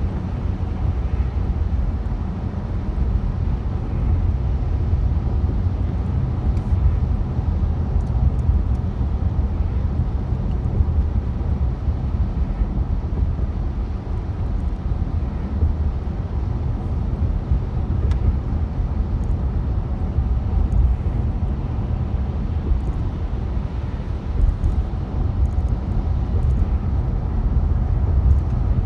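Steady low rumble inside a moving car's cabin, made by the engine and by tyres on wet highway pavement.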